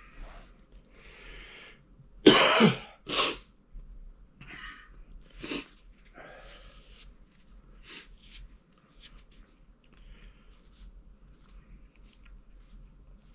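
A man coughing: two hard coughs about two seconds in, then a few lighter coughs and throat sounds, from the burn of Carolina Reaper–spiced popcorn.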